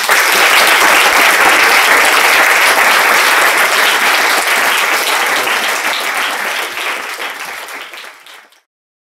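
Audience applauding: dense clapping that starts abruptly, holds steady, then tapers and cuts off about eight and a half seconds in.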